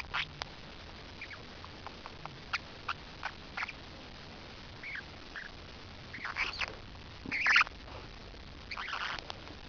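Parrotlet making a series of small clicks and short soft chirps, then a few louder short calls in the second half, the loudest about seven and a half seconds in.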